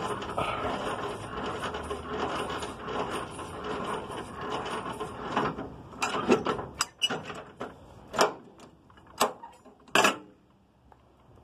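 Semi-trailer landing gear being worked with its hand crank: a rapid gear clatter for about five seconds, then a handful of separate sharp metallic clanks roughly a second apart.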